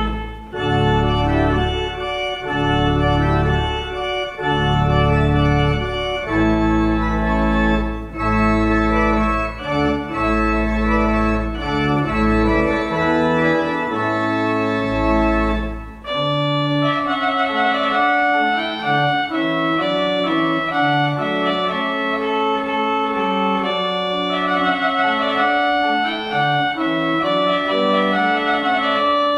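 Organ music: held chords over a deep pedal bass for about the first half, then the bass drops out and lighter, quicker lines continue higher up.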